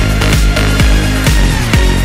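Electronic dance music with a steady, deep kick-drum beat, about two beats a second.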